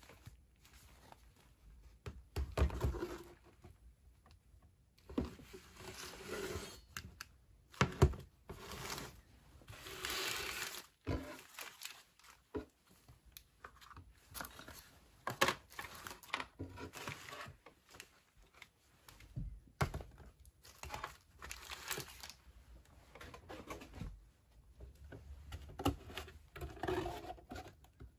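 Ration packaging being handled: plastic and foil food packets crinkling and rustling in irregular bursts, with a few sharp knocks as tins and packets are moved on a table.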